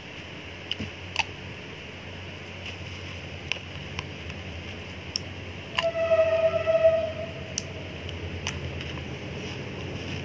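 Plastic spoon clicking and scraping in a plastic cup of taho, a scattering of light clicks over a steady low hum. About six seconds in, a single held tone sounds for about a second and a half and is the loudest sound.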